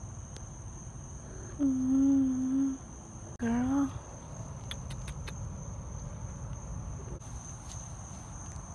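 Crickets chirring in one steady, high, unbroken tone. Two short low voice-like calls sound over it, about a second and a half in and again about three and a half seconds in; the second one bends up and down in pitch.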